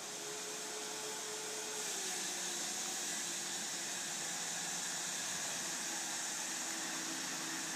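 Volvo EC290B tracked excavator running, a steady mechanical hum with a faint whine that drops in pitch about two seconds in, under a strong even hiss.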